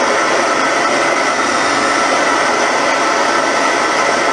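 Homemade miniature jet engine running steadily: a loud, even rush of noise with a faint high whine, its exhaust burning with a blue flame.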